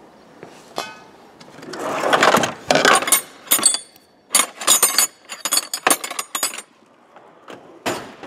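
Steel hand tools (wrenches, ratchets, sockets) clinking and rattling as they are rummaged through in a metal tool-chest drawer: a shuffling start, then a quick run of sharp metallic clinks, and one more clink near the end.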